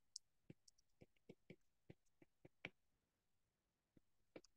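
Faint, irregular ticks of a stylus tapping and drawing on a tablet's glass screen, about nine of them, in otherwise near silence.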